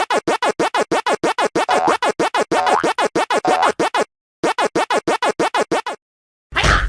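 Fast stuttering electronic music with a record-scratch chop, about seven sharp pulses a second. It breaks off briefly about four seconds in and again near six seconds, and a loud falling swoop starts just before the end.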